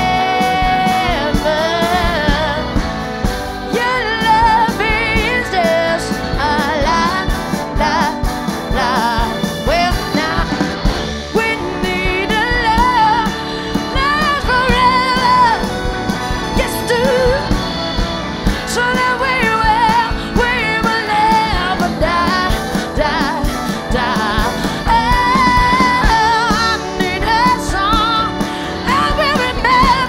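Live rock band playing, with a woman singing lead into a microphone over electric guitar, bass guitar and drums.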